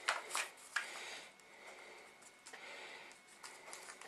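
Aluminium foil takeaway container crinkling and clicking as dough is pressed into it by hand, with a few sharp crackles in the first second or so, then softer rubbing.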